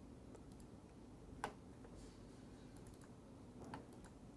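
Near silence with a couple of faint, short clicks, one about a second and a half in and one near the end.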